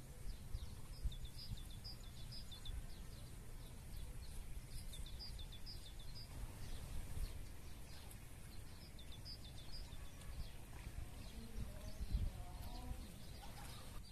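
Songbirds singing in short phrases of rapid high chirps that come and go three times, over a low steady background rumble. A brief lower call, rising and falling, sounds near the end.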